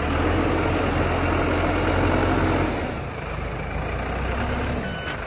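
Diesel engine of an AOLITE BL70-25 backhoe loader running steadily, working harder for the first two or three seconds and then easing back.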